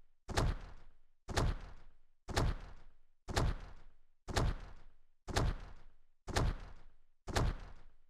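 Heavy stomping footstep sound effects for a giant creature walking: eight deep thuds, one each second, each fading out over most of a second.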